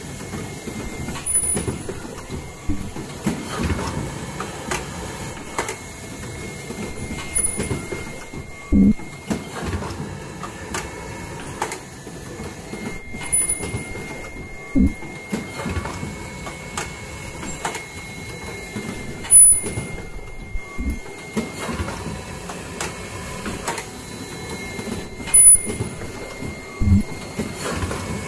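Fully automatic N95 cup mask machine running, with the clacks and knocks of its pneumatic actuators in a working cycle that repeats about every six seconds. Each cycle brings brief high-pitched tones.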